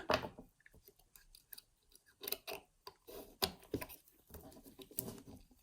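Scattered small metallic clicks and ticks from a five-lever mortice lock's mechanism as its bolt is thrown over.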